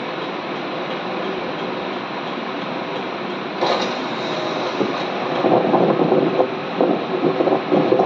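Tornado winds: a steady rushing roar, with a sudden louder gust about three and a half seconds in and irregular buffeting rumbles from about five seconds on.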